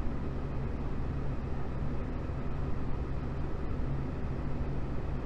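Steady low machine hum under an even rushing noise, unchanging throughout.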